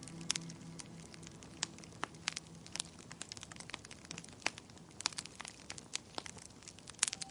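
Wood fire in a fireplace crackling: irregular sharp pops and snaps, several a second, some louder than others. Soft music dies away in the first second and comes back at the very end.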